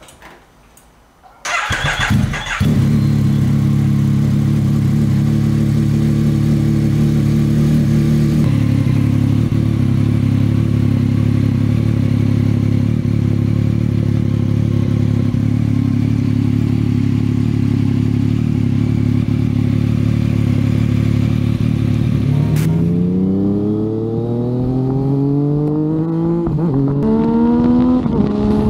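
Yamaha MT-09's inline-three with an Akrapovič exhaust starting up: a short burst as it catches about a second and a half in, then a steady idle. Near the end it pulls away under acceleration, the pitch rising in several climbs with brief drops between them as it shifts up through the gears.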